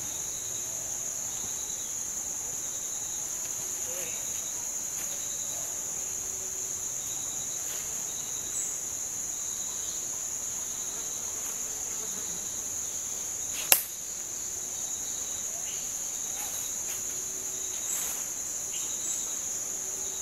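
A steady, high-pitched insect chorus trills without a break. A single sharp click stands out about two-thirds of the way through.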